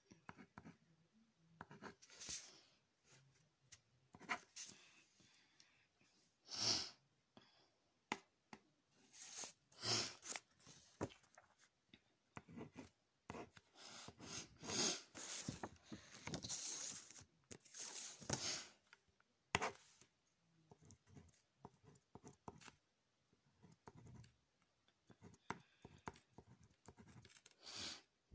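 Pencil scratching on paper in short, irregular strokes as marks and numbers are written.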